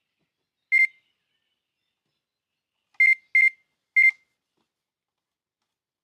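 Electronic fishing bite alarm beeping: one short beep, then about two seconds later three more in quick succession, the signal of line being taken by a biting zander.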